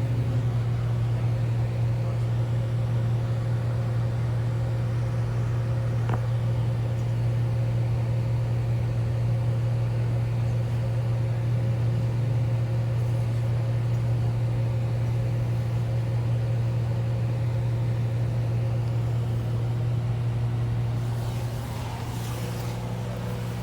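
Interior drone of a 2012 IC RE school bus under way, its rear-mounted MaxxForce DT diesel running: a steady low hum with fainter steady tones above it, easing off a little near the end.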